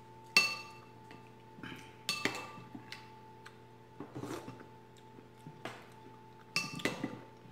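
Ceramic soup spoon clinking against a ceramic soup bowl as chowder is scooped: a sharp, ringing clink about half a second in, another around two seconds, and a cluster of clinks near the end, with quieter eating sounds around four seconds in.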